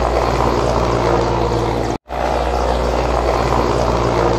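Indian Air Force Mi-17V5 transport helicopter flying close by, its rotors and turbine engines making a loud, steady beating drone, with a brief break about halfway.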